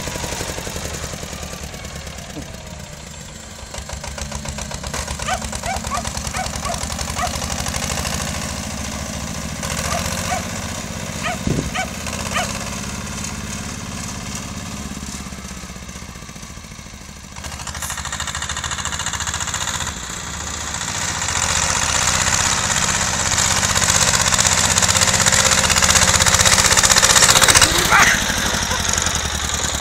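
Small tractor's engine running steadily while it plows snow. It fades as the tractor drives away, then grows louder as it comes back up close near the end.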